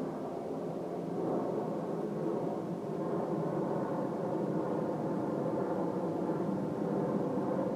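Distant outdoor warning siren sounding steadily, its tone swelling slightly as it carries from afar.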